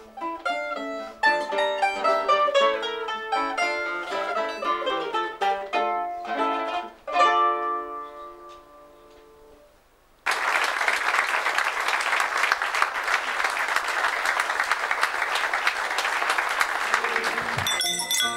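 Mandolin and guitar duet playing a quick run of plucked notes, ending on a final chord about seven seconds in that rings out and fades away. Audience applause follows from about ten seconds in, lasting roughly eight seconds. Near the end, different music with bright ringing tones starts.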